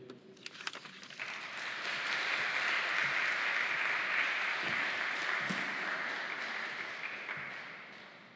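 Audience applauding: a few scattered claps at first, then steady applause from about a second in that dies away near the end.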